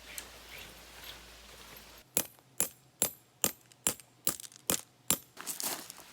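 A series of sharp metallic clinks, about eight in a steady rhythm a little over two a second, starting about two seconds in.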